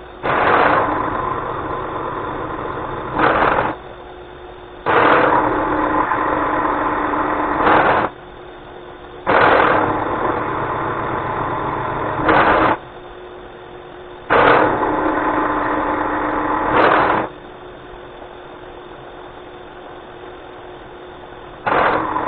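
Bridgeport vertical milling machine cutting a step into annealed 4140 steel with the spindle running. There are five cutting passes of about three seconds each, louder as each pass starts and ends. Between passes the spindle motor's steady hum carries on, with a longer break before the last pass near the end.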